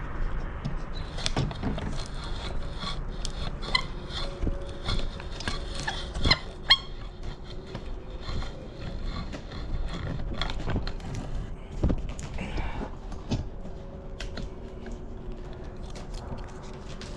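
Hand-cranked copper wire stripper being worked as wire is fed back through it: irregular metal clicks and knocks, with faint thin squeaks.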